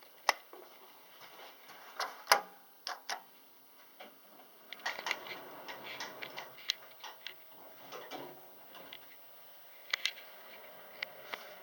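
Irregular sharp clicks and knocks, spaced unevenly, over faint background noise.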